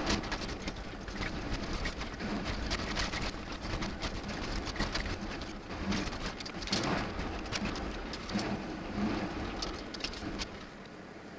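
Raindrops tapping on the windshield of a moving truck, heard from inside the cab, over the low rumble of the truck driving on a wet road.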